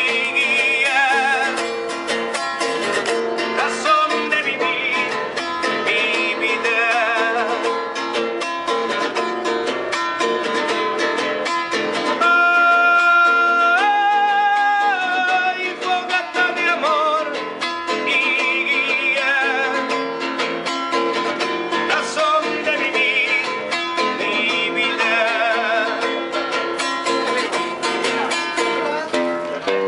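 A man singing with vibrato to his own strummed classical guitar, holding one long note about halfway through that steps up in pitch before he carries on.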